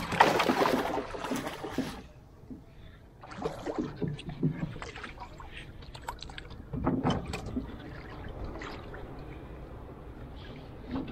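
Wooden paddle stroking through the water beside a small wooden canoe. A loud splashing stroke comes first, then quieter splashes with a few sharp clicks about three and seven seconds in, over a low steady wash of water.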